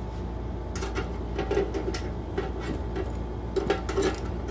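Scattered light metallic clicks and clinks as a bolt, washer and nut are handled and fitted through a steel bracket on a steel ammo box. A wrench is put to the nut near the end. A steady low hum runs underneath.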